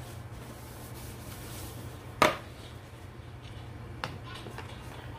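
A metal whisk clinks sharply against a stainless steel mixing bowl of cake batter a little after two seconds in, with a fainter tap about four seconds in.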